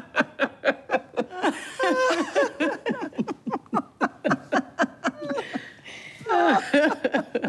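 Two women laughing hard together in quick, rapid bursts, with higher, drawn-out laughs about two seconds in and again near the end, where the laughter stops.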